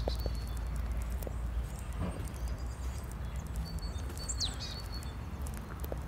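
Footsteps on a gritty park path, with birds chirping, one giving a quick downward-sweeping whistle about four and a half seconds in, over a steady low rumble.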